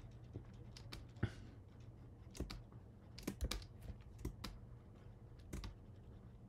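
About a dozen light, irregular clicks from a computer keyboard and mouse, some in quick clusters, over a faint low steady hum.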